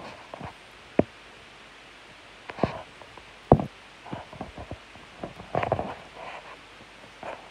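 Scattered knocks, taps and short scrapes against a plastic tub, with the sharpest knocks about a second in and again in the middle, and a cluster of scraping near the end.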